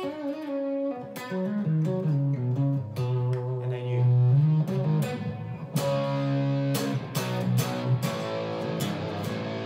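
Electric guitar, a Les Paul-style solid-body, played through a fuzz pedal with the guitar's volume knob turned down, so the fuzz cleans up to a near-clean tone. Picked notes and chords, with a loud low note held about three to four seconds in.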